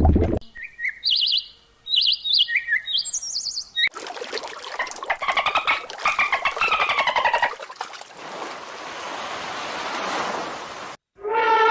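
Bird calls: a run of short high chirps, then harsher, rasping calls that fall in pitch, then a steady hiss. The hiss cuts off suddenly, and a low drawn-out call begins right at the end.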